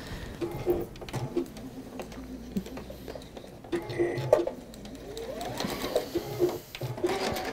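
Juki computerized sewing machine stitching, its needle running in rapid strokes.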